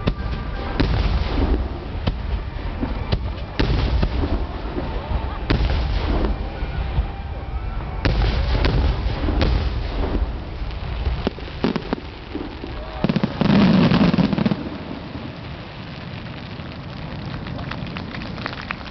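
Fireworks finale: aerial shells bursting in quick succession, a dense run of booms and crackle. A loud low rumble follows about thirteen seconds in, then the bursts die away under crowd voices.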